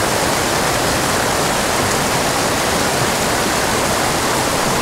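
Small mountain creek rushing over rocks, with little cascades spilling into a pool: a steady, even rush of water.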